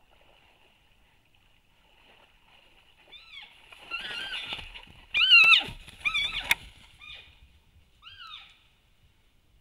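Cow elk giving a series of about six short, high-pitched squealing calls, the loudest about halfway through, distress calls as a wolf attacks her. Muddy water splashes as she lunges out of the wallow near the start of the calls, and a single sharp click sounds a little past halfway.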